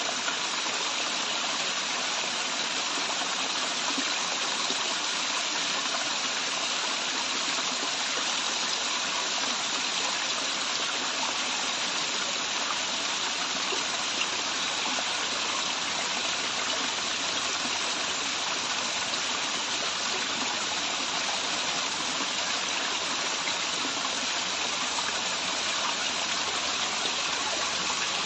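Waterfall water rushing and splashing in a steady, unbroken roar of white noise.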